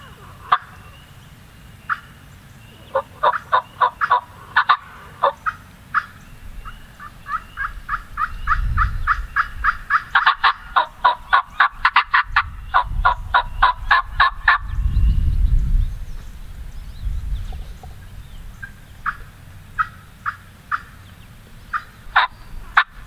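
Turkey calls: short sharp notes, a few scattered at first, then a long fast run of about six a second lasting several seconds, then scattered single notes again near the end.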